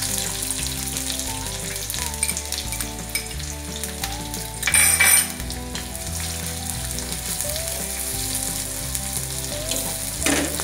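Sliced onions sizzling in a little hot oil in a steel kadhai, stirred with a wooden spatula. A brief louder burst of sizzle comes about halfway through.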